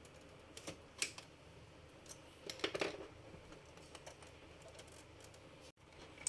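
Faint scattered clicks and taps of plastic and metal parts being handled as the DVD drive is worked out of an HP Omni Pro 110 all-in-one PC, with a short rattling clatter about two and a half seconds in.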